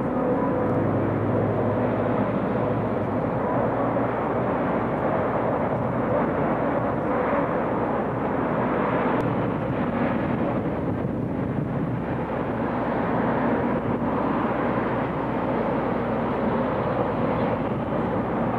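Steady city street traffic noise: a continuous rumble and hiss of passing cars.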